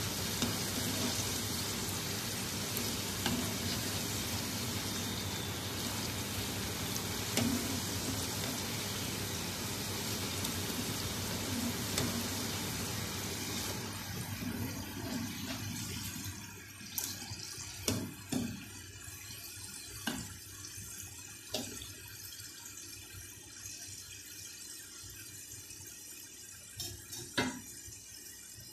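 Chunks of potato deep-frying in hot oil, a steady sizzle, turned now and then with a metal skimmer. About halfway through the sizzle drops to a quieter hiss, broken by a few sharp clicks.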